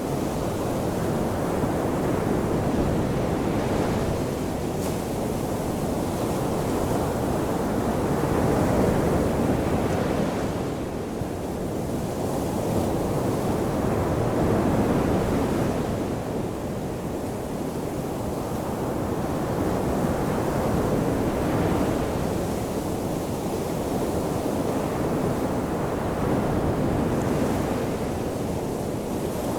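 Ocean surf washing onto a shoreline, a continuous rushing wash that swells and eases about every six seconds as waves break and draw back.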